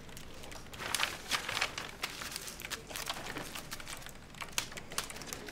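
Computer keyboard typing: irregular light key clicks, a few of them sharper, with brief clusters.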